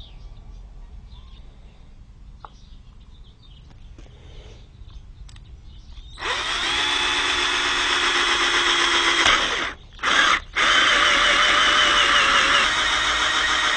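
Cordless drill with a hole saw boring into a coconut's husk: after about six seconds of faint background it starts up and runs steadily, cutting out twice briefly around ten seconds in, then carries on drilling.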